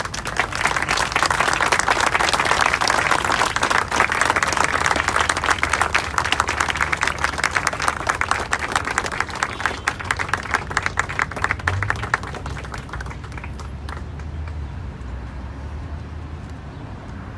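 Audience applauding, starting at once, holding strong for about ten seconds and dying away about twelve seconds in. A low steady traffic rumble runs underneath.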